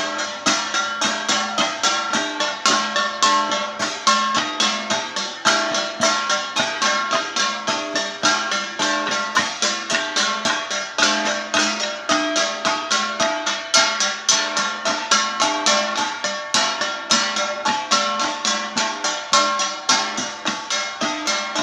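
Traditional Ifugao folk music: a quick, even run of short struck notes that repeat a melodic pattern without pause.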